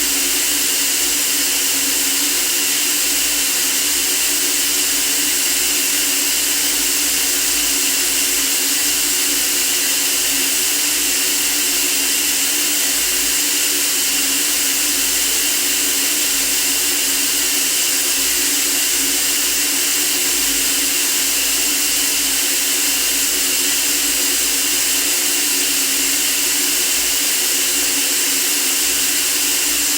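Steady white noise for sleep: a constant, even hiss, strongest in the treble, that does not change.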